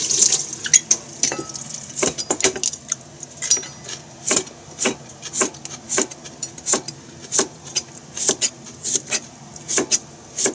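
A chef's knife slicing a cucumber on a plastic cutting board: steady knocks of the blade on the board, about two a second, beginning about two seconds in. A short hiss of running tap water fades out at the very start.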